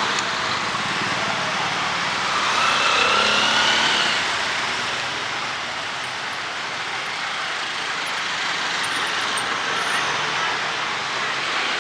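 Steady hiss of rain and wet street noise, with a motor vehicle passing close by, loudest about three seconds in, a faint rising whine with it.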